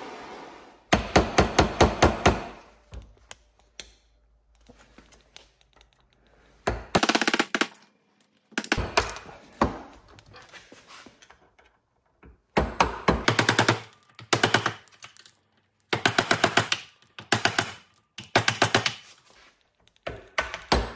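Hammer driving a steel punch against a motorcycle rear shock absorber clamped in a steel bench vise, in bursts of rapid metallic taps that ring. There are about half a dozen bursts, the first about a second in, each a quick run of several blows.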